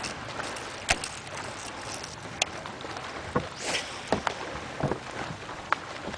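Water slapping and splashing against a small boat: a steady wash of water and wind, broken by several sharp slaps and one longer splash a little past halfway.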